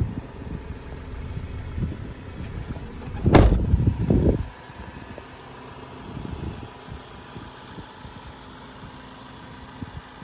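Ford Transit's diesel engine idling. A low rumble runs for the first four seconds or so, with one loud thump a little over three seconds in; after that the idle runs quieter and steady.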